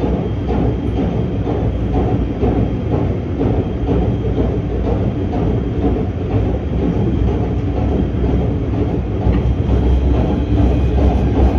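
PATH subway train running at speed through a tunnel, heard from inside the car: a steady rumble of wheels on rail.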